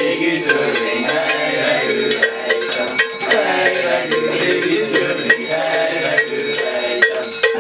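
Group of young men singing a regös song together, with the metal jingling and knocking of chain staffs (láncos bot) shaken along with the song.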